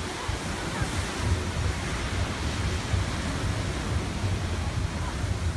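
Steady rush of water, with wind buffeting the microphone in irregular low rumbles.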